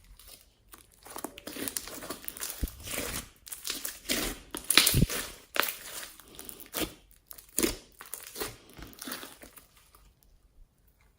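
Glossy slime mixed with floam beads being squeezed and stretched by hand: irregular crackling, crunching and sticky popping, loudest about halfway, dying away near the end.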